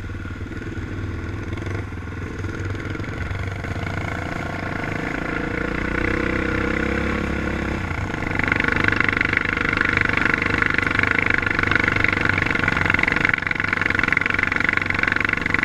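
Yamaha Raptor 700 ATV's single-cylinder engine running on a trail ride, its revs climbing over a few seconds. It gets louder about eight seconds in, with a rushing noise added as the quad speeds up.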